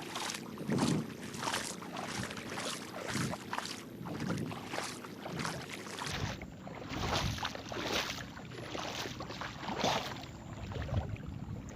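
Someone wading through deep water in a flooded marsh or paddy, with irregular sloshing and splashing as the legs push through.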